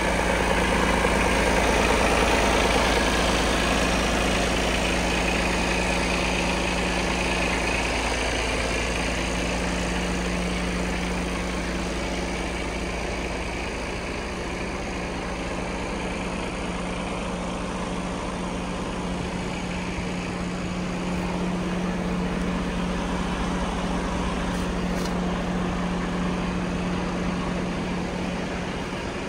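Mercedes-Benz Arocs 1843 tractor unit's straight-six diesel engine idling steadily, a constant low hum that fades a little midway and comes back up.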